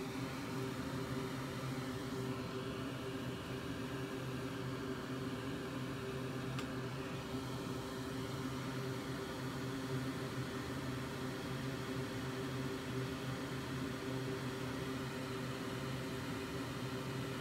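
A small electric fan or blower running with a steady whir and a low hum.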